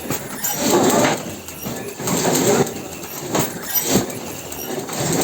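Automatic KN95 mask packaging machine running, its mechanical noise swelling and easing in a repeating cycle.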